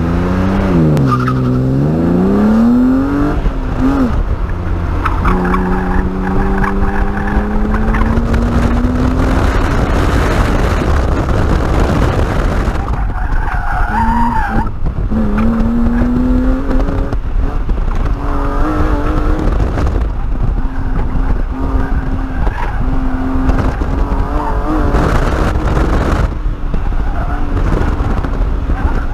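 BMW E36 M3 straight-six engine heard from inside the cabin on an autocross run. It revs up from the launch, drops at a shift about five seconds in, then climbs slowly before rising and falling through the turns. The tyres squeal in the corners, most plainly about fourteen seconds in.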